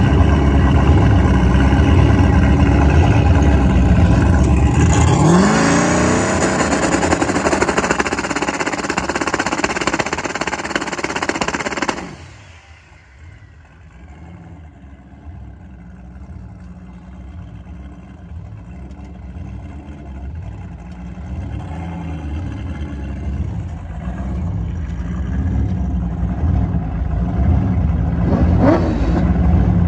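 Car engine revving hard, its pitch climbing about five seconds in, then the sound drops suddenly at about twelve seconds to a lower, quieter engine note that slowly grows louder again, with another brief rev near the end.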